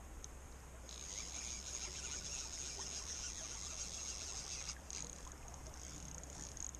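Fly reel clicking rapidly as line runs on and off the spool while a hooked trout is played. It starts about a second in and stops abruptly near five seconds, over the steady rush of the creek.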